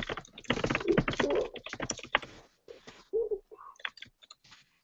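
Fast typing on a computer keyboard, key clicks coming thick over the first two and a half seconds, then sparser. A short low hum of a voice comes about three seconds in.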